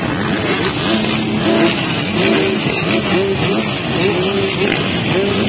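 A field of motocross bikes revving at the starting gate, many engines running together, their pitches rising and falling in short blips.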